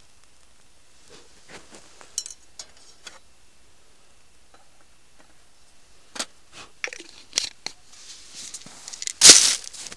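Close-up handling noises: scattered small clicks, taps and rustles, then a short, loud burst of noise a little after nine seconds, as of packaging being torn or crumpled.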